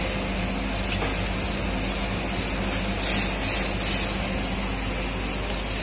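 TIG welding arc from a TIG400P pulse TIG welder, burning with a steady hiss over a low hum. About three seconds in, the hiss surges three times, roughly two to three surges a second.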